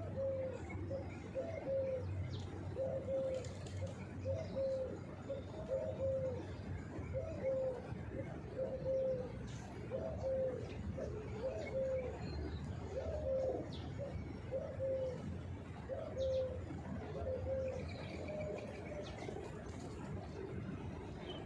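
Feral pigeons cooing, a steady run of short low coos about one a second, with faint chirps above them.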